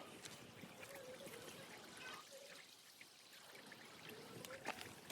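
Faint trickle of running water from a small desert stream or waterfall, steady and low.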